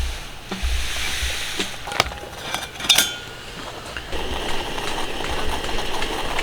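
Dishes and tableware being handled at a table, with sharp clinks and knocks; the loudest comes about three seconds in. A steady hiss takes over in the last couple of seconds.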